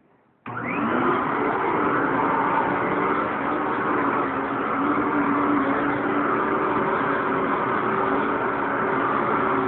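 Upright vacuum cleaner switched on: the motor starts suddenly about half a second in, its pitch rising briefly as it spins up, then runs steadily at full speed.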